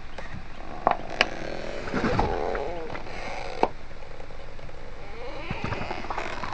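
Objects cracking and squeaking as a car tyre crushes them. Sharp cracks come about a second in and again past three seconds, with creaking squeaks around two seconds and near the end, over a steady vehicle hum.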